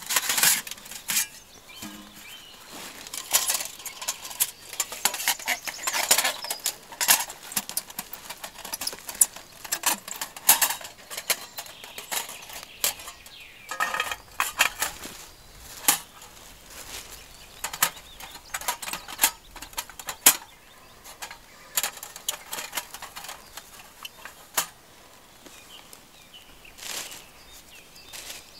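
Thin steel panels of a folding twig stove clinking, scraping and rattling as it is unfolded and slotted together, a string of irregular sharp clicks.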